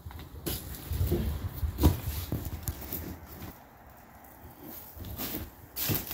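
Irregular footsteps crunching over debris, with uneven knocks and low thumps, loudest about two seconds in and again near the end.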